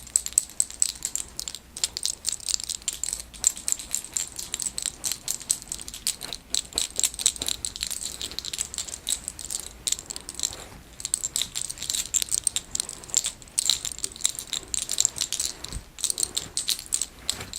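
Fingers massaging a woman's scalp and working through her hair close to the microphone: a dense, rapid crackling of hair rubbing, with a few short pauses.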